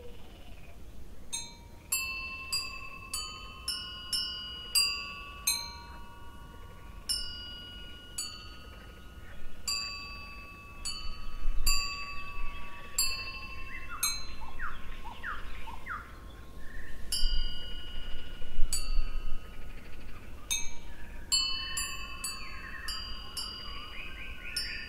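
Metal chimes struck one after another at an irregular pace, each strike leaving clear pitches ringing on and overlapping into a shimmering cluster. Short chirps come in among them about eleven seconds in and again near the end.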